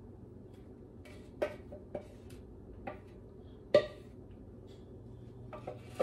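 A utensil scraping and knocking against a plastic mixing bowl as cake batter is scraped out into a plastic cup: a few separate knocks, the loudest about four seconds in.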